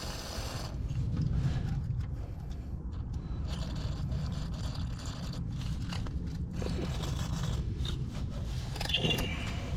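Irregular scraping and rustling from hands handling loose wiring and connectors, over a steady low rumble.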